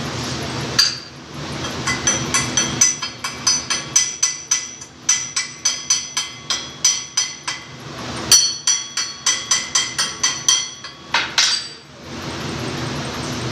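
A small hand hammer tapping a steel workpiece clamped in a bench vise. It gives a quick run of light metal strikes, several a second, each with a short bright ring. The tapping pauses briefly just past the middle, then resumes with one harder blow.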